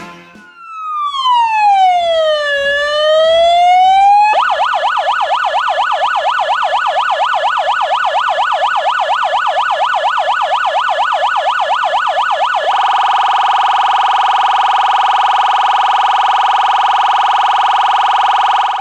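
Electronic emergency-vehicle siren run through its tones. About a second in comes one slow sweep down and back up. Then comes about eight seconds of a fast yelp, and it switches to a steady held tone for the last six seconds.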